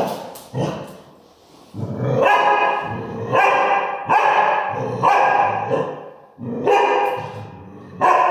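Dog barking repeatedly, about one bark a second.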